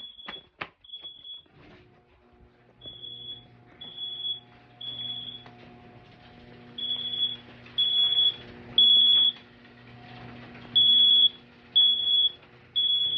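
System Sensor SpectrAlert Advance mini horn sounding a high-pitched beeping fire-alarm tone in the temporal-three pattern: three half-second beeps, then a pause, repeating. The beeps get louder over the second half, and a low steady hum runs underneath from about a second and a half in.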